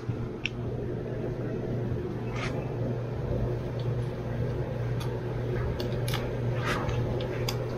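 Knife cutting along the back of a whole cobia being filleted, with several small clicks and scrapes over a steady low hum.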